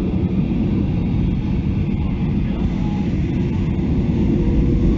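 Boeing 737-800's CFM56-7B jet engines spooling up at the start of the takeoff roll, heard from inside the cabin: a steady low rumble that grows louder toward the end.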